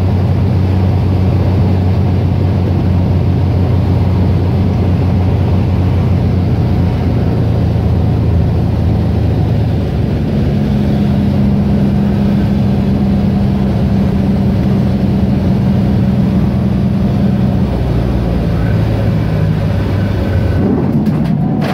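Cabin drone of a high-wing light aircraft's piston engine and propeller during approach and landing, loud and continuous. The engine note changes about halfway through as power is adjusted, and changes again near the end as the plane touches down and rolls out on the dirt strip.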